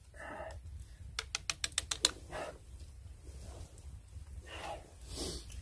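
Small twig campfire crackling, with a quick run of sharp pops about a second in. Soft rustling follows as someone shifts on dry leaves.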